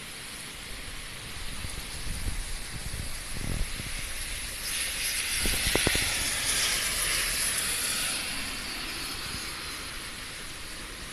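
Typhoon rain with a steady hiss, interrupted by low rumbles and then a loud rushing gust that swells about halfway through and dies away again.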